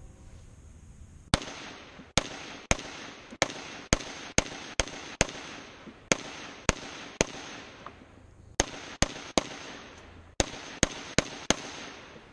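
AR-15-style rifle fired semi-automatically, about eighteen shots, each trailing off briefly. There is a run of eleven shots roughly half a second apart, then after short pauses a string of three and a string of four.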